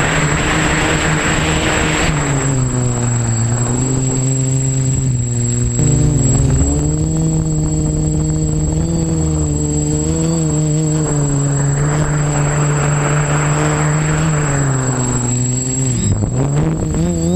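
OFM Seeker 450 quadcopter's brushless motors and propellers droning, heard from the camera mounted on it, the pitch rising and falling with throttle and dipping sharply then recovering near the end. A rushing air noise swells over the drone at the start and again about two-thirds through, with a faint steady high whine above it all.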